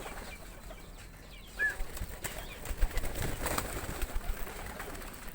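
Tame domestic pigeons cooing and fluttering, with a short high chirp about one and a half seconds in.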